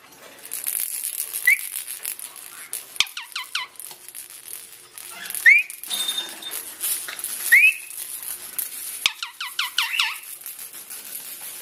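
Parrot giving short rising chirps and quick runs of whistled notes, off and on, with pauses between.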